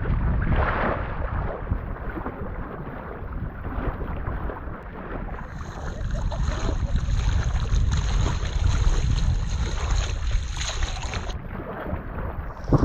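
Wind buffeting a GoPro's microphone as a kayak is paddled on open water, a steady low rumble with water sounds beneath. A higher hiss joins about halfway through and cuts off shortly before the end.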